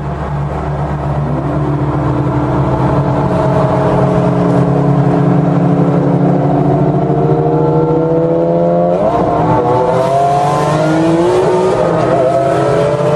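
Sports car engines accelerating hard: a steady engine note climbs slowly in pitch, and about nine seconds in more engines join, several notes rising together as the cars speed up.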